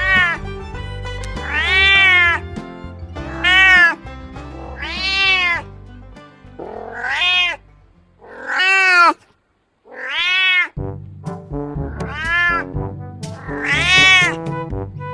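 Domestic cat meowing repeatedly: about nine drawn-out meows, each rising then falling in pitch. Background music plays under them and stops briefly midway.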